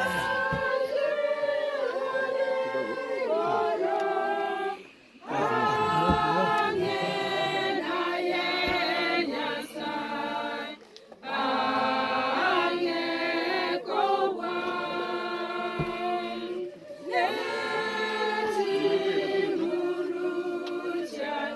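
A group of mourners singing unaccompanied, in sung phrases broken by brief pauses about every five or six seconds.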